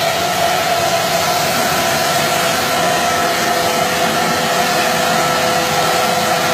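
Titan wet-and-dry vacuum running steadily as dust extraction for a Mirka hand sander, a constant rushing of air with a steady whine.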